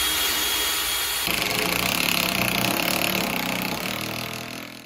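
Cordless drill running under load against the wooden deck framing. Its sound changes about a second in to a deeper, rapidly pulsing note, then fades away near the end.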